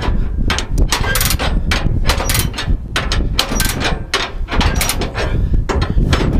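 Rapid, irregular metallic clanks and knocks, several a second, from the car hauler's steel deck and tie-down gear as a worker moves along it and handles the straps, over a steady low rumble.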